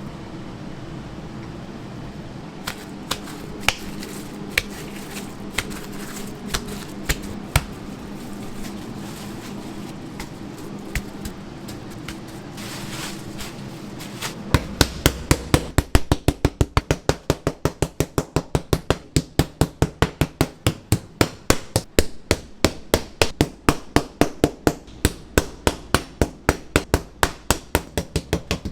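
Pork being pounded on a board to flatten and tenderize it for cutlets. Scattered knocks give way, about halfway through, to a fast, even run of strikes at about four to five a second.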